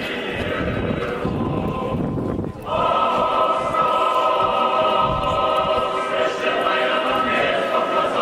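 Orthodox church choir singing in held chords. The singing breaks off briefly about two and a half seconds in, then comes back louder.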